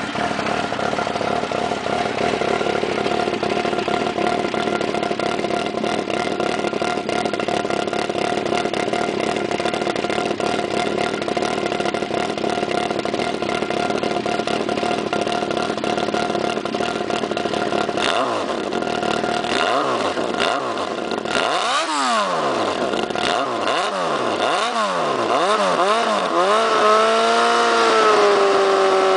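1994 Honda CBR1000F's inline-four engine running through an exhaust drilled with six holes and a pierced baffle: it idles steadily, then is blipped several times in quick rises and falls about two-thirds of the way through, and is held at a raised speed near the end.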